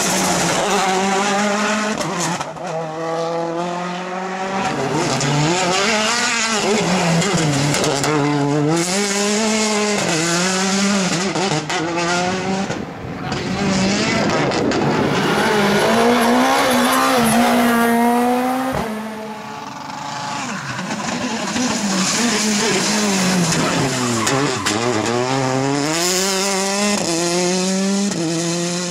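Rally cars driven hard past the roadside, one after another: turbocharged engines revving up and dropping back through gear changes, with tyre noise.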